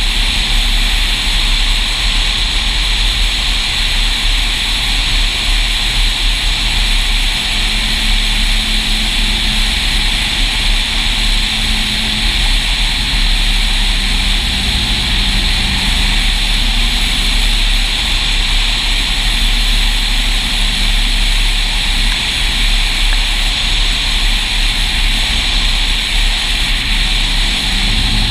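Single-engine Cessna's piston engine and propeller running steadily in low flight, with heavy wind rush and buffeting on the outside-mounted camera.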